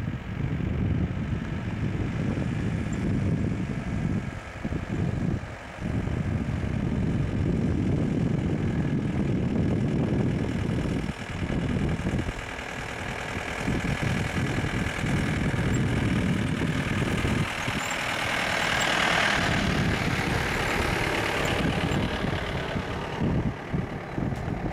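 Motor vehicle engine running, a steady low rumble with a few brief dips, and a louder hissing stretch toward the end.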